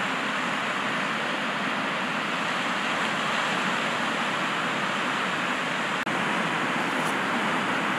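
Surf breaking and washing onto the beach, a steady rushing noise, with a momentary break about six seconds in.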